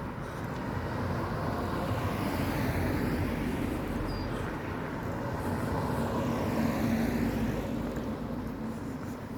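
Road traffic: cars passing close by, the engine and tyre noise swelling twice, about three seconds in and again about seven seconds in.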